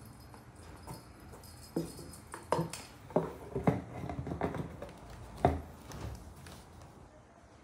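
Cardboard box knocked and thumped from inside in an irregular series of hollow knocks, as a cat lunges and bats at a wand toy lure dragged past the box's flap. The loudest knock comes about five and a half seconds in.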